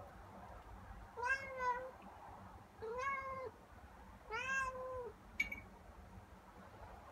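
Domestic cat meowing three times, each meow under a second long, rising then falling in pitch, about a second and a half apart. A short sharp click follows just after the last meow.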